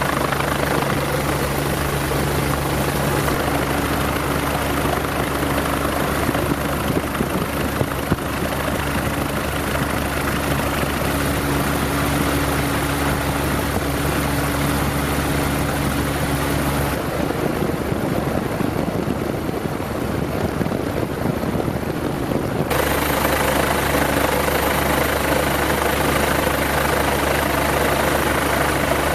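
Helicopter engine and rotor noise: a steady, loud drone with a low hum. For about six seconds in the middle the steady hum drops out, leaving a rougher rushing noise, and then it returns.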